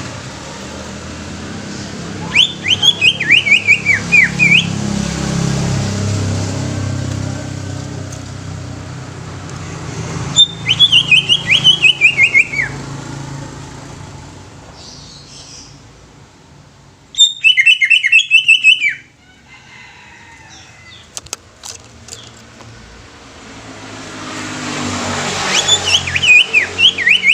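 Green leafbird (cucak ijo) singing: four loud bursts of quick, chattering, falling notes, each about two seconds long, spaced roughly seven seconds apart. A low rumble runs under the first half.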